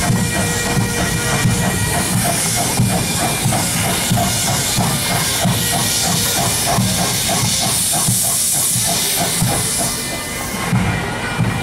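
Steam locomotive 2705 starting off slowly: loud hiss of steam from the open cylinder drain cocks, with the exhaust beating from the chimney a few times a second.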